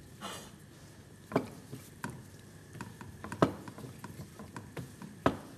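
Hands working flattened dough on a floured countertop. A soft brushing at the start is followed by scattered light taps and three sharp knocks on the counter, the loudest about a second and a half, three and a half and five seconds in.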